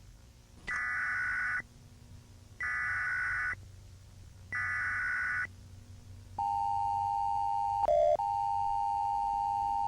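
Emergency Alert System tones: three bursts of SAME header data, each about a second long, then from about six seconds in the steady two-tone EAS attention signal. The attention signal is broken briefly by a short, lower, louder blip a little before the end.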